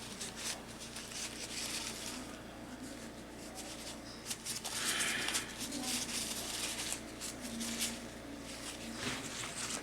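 Soft, irregular scratching and rustling of hands-on craft work at a table: a paintbrush working paint onto a clay plate and small objects being handled, a little louder about five seconds in.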